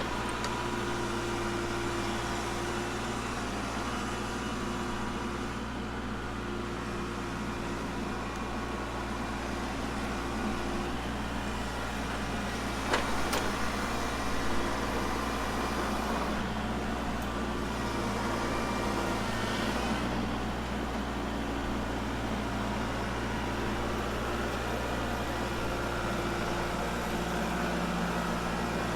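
Kubota tractor's diesel engine running steadily while working a log off a trailer, its note shifting with the load a little past the middle. A sharp knock about 13 seconds in.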